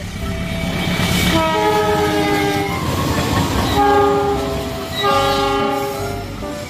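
Diesel locomotive horn sounding about three long blasts, each a chord of several tones, the first sliding slightly lower in pitch, over the rumble of a passing train.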